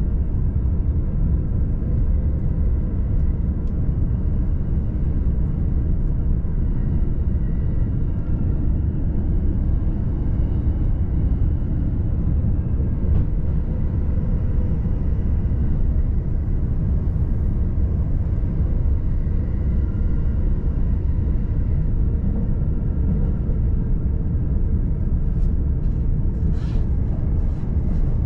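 Joban Line commuter train running, a steady low rumble heard from inside the passenger car, with faint steady tones above it.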